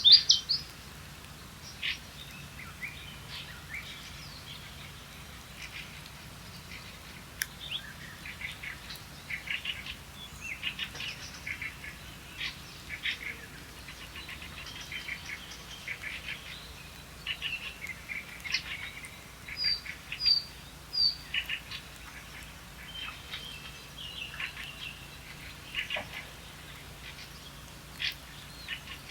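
Small songbirds chirping and calling, with short scattered notes all the way through and three sharp high notes in a row about twenty seconds in.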